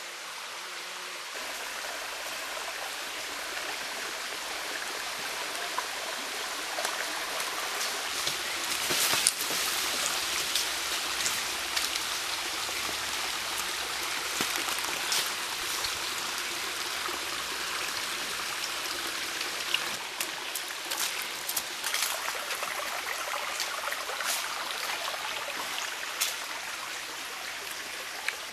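A small forest stream running steadily over rocks. Scattered dry crackles and snaps of footsteps in leaf litter come in now and then, thickest about nine seconds in and again through the second half.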